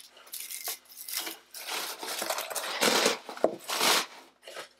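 Paper honeycomb mesh wrapping rustling and tearing as it is pulled off a glass beer bottle, in several bursts, loudest about three to four seconds in.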